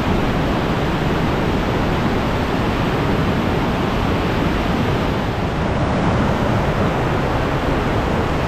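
Gordale Scar waterfall pouring, a steady, very loud rush of water heard close by.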